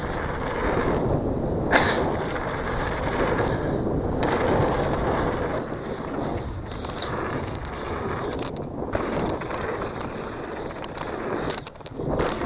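Downhill mountain bike running fast down a dirt trail: tyres rolling over dirt and loose stones, the bike rattling, and wind on the action camera's microphone. A sharp knock stands out about two seconds in, with smaller clicks after.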